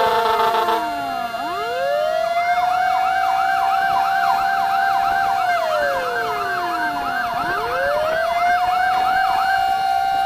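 Emergency vehicle sirens sounding together, fitting responding fire trucks: a slow wail that rises and falls, a fast yelp over it from about two seconds in until near the end, and a steady tone underneath. A horn blast cuts off in the first second.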